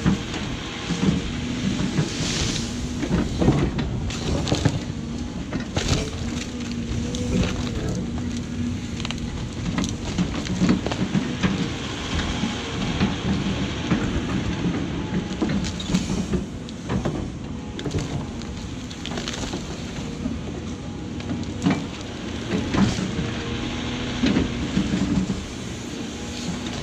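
Caterpillar 349F excavator's diesel engine running steadily under load as the machine works a large tree stump, with repeated sharp knocks and cracks from the bucket striking and tearing at the stump and ground.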